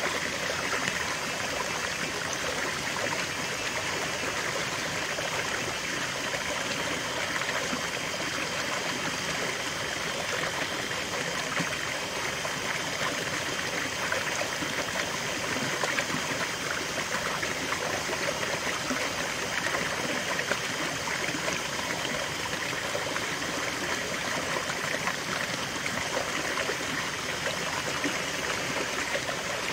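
Small stream spilling over rocks into a shallow pool, a steady splashing and trickling of running water.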